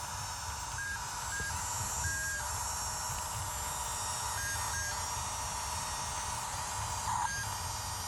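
Excavator's diesel engine running with a steady low rumble and a constant whine, with several short electronic beeps at uneven intervals.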